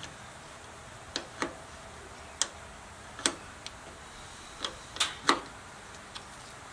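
Irregularly spaced sharp metallic clicks and taps, about nine single ones with the loudest pair about five seconds in, from hands and a tool working on the riding mower's battery terminals and hold-down.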